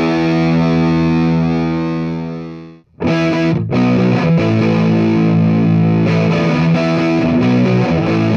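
Heavily distorted electric guitar played through a Marshall JMP 1987 50-watt valve amp into a Celestion G12M-65 Creamback speaker. A held chord rings out and cuts off about three seconds in. Then distorted chords start again, with the amp at less extreme settings.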